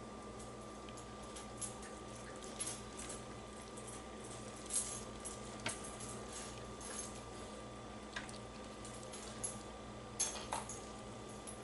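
Faint, scattered light clicks and rustles of hands tying butcher's twine around a rolled, stuffed pork tenderloin held with wooden skewers on a cutting board, over a steady electrical hum.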